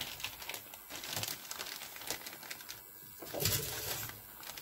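A clear plastic bag of green plastic model-kit runners crinkling as it is picked up and handled, with light clicks of plastic parts. A louder, lower rustle comes about three and a half seconds in.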